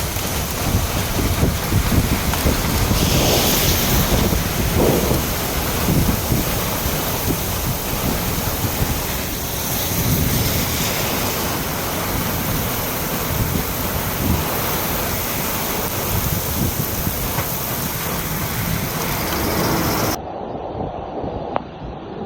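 Heavy thunderstorm rain with strong downburst wind gusting and buffeting the microphone, a dense steady roar. Near the end it switches abruptly to a duller, muffled version of the storm.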